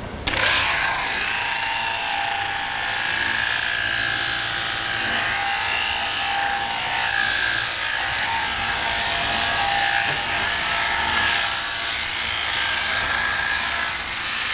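Sheep-shearing handpiece running steadily as its comb and cutter clip through the fleece: a continuous mechanical whirr with a hiss. It starts abruptly about a quarter second in.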